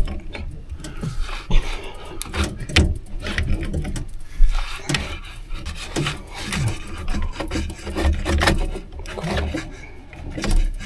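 Rubbing and scraping sounds with many scattered knocks and clicks.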